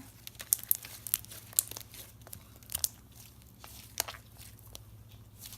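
Homemade glue slime being squished and stretched by hand, making irregular sticky clicks and small pops.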